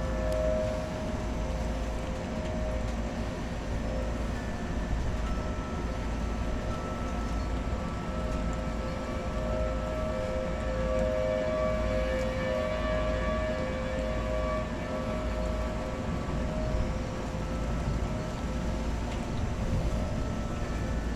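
Outdoor tornado warning siren sounding a held two-tone wail that swells and fades, strongest in the middle, warning of a possible tornado as a thunderstorm passes.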